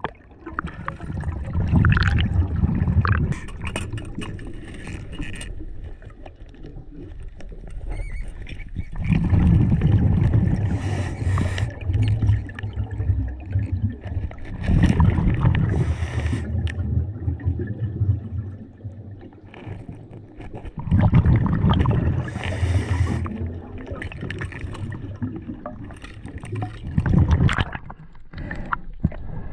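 Scuba diver breathing through a regulator underwater: bursts of exhaled bubbles gurgling past the mask, with the hiss of inhaling between them, in cycles about six seconds apart.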